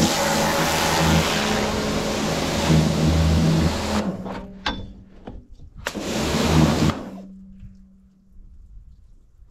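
Pressure washer spraying water with a steady hiss over its pump's hum; the spray cuts off about four seconds in, and a few short bursts of spray follow. After the last burst the pump hums on alone for a moment, then fades away.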